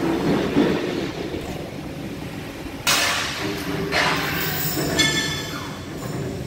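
Metal-workshop clatter: a steady low rumble, with steel struck three times about a second apart, each clang ringing on for a moment.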